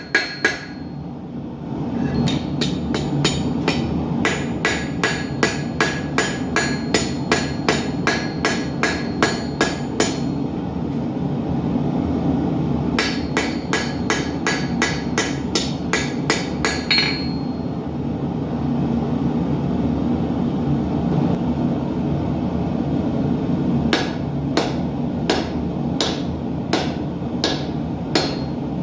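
Hammer striking hot steel on an anvil to forge arrowheads, in three quick runs of blows at about three a second, each blow ringing, with pauses between the runs. A steady roar from a gas forge runs underneath.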